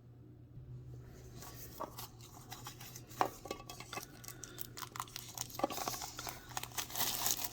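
Plastic shrink wrap being torn and crinkled as it is peeled off a Pokemon mini tin: scattered crackles and clicks that start about a second in and grow denser and louder near the end.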